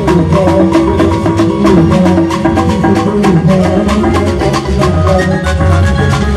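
Loud dance music with a quick, steady percussion beat under a melody line.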